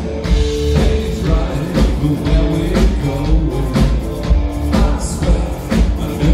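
A live pop-rock band playing: a male lead singer over a drum kit, electric guitar and keyboards, with a steady beat.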